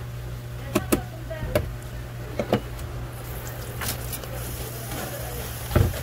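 A handful of sharp, scattered knocks and taps over a steady low hum, from handling a live fish and a spiking tool on a work surface.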